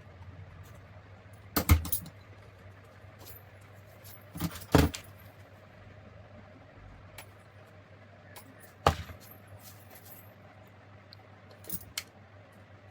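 Metal tools and small metal parts being handled and set down during fan repair work, giving a handful of sharp clinks and knocks, the loudest about two and five seconds in, over a faint steady low hum.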